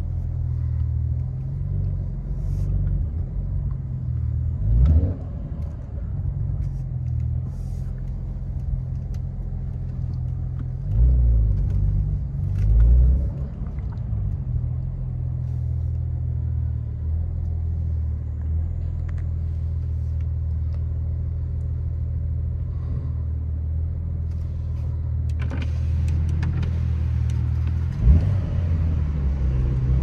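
Porsche 911's flat-six engine heard from inside the cabin, running at low speed in slow traffic as a steady low drone. It swells briefly a few times as the throttle is opened, and there is a short knock near the end.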